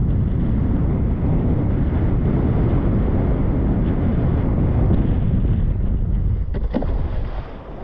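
Wind buffeting an action camera's microphone as a wing foiler rides across the water on a hydrofoil: a loud, steady low rumble. It eases about a second before the end, with a few short clicks.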